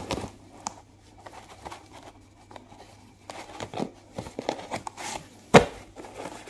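Paper cards and leaflets being handled and shuffled by gloved hands, light rustling with scattered small taps, and one sharp click about five and a half seconds in.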